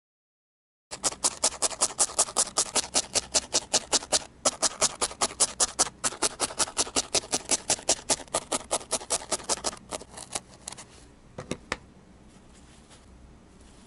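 Felting needle stabbing repeatedly into a wool ball, about five quick jabs a second with two brief pauses. The jabbing stops about ten seconds in, followed by a few faint handling clicks.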